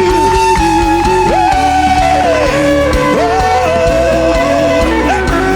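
Instrumental worship music: a lead guitar plays a slow melody of long held notes that slide from pitch to pitch, over a full band backing.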